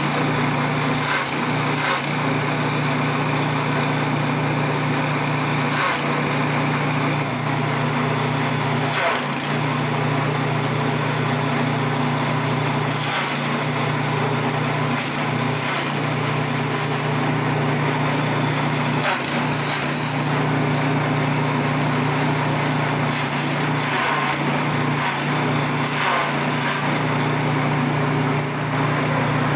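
Small engine-driven chaff cutter running steadily while chopping dry rice straw fed in by hand, a constant engine drone with rough crackling from the blades cutting the straw. The drone dips briefly every few seconds.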